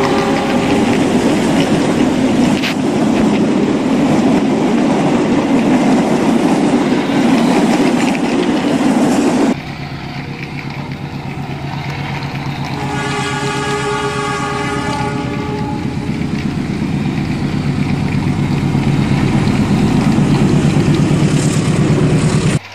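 Battery-powered toy electric train running on plastic track: its motor and wheels make a steady running noise, loudest as it passes close by, and drop suddenly about a third of the way through. Midway it sounds a short electronic horn lasting a couple of seconds. The owner says it runs slowly because its batteries are nearly flat.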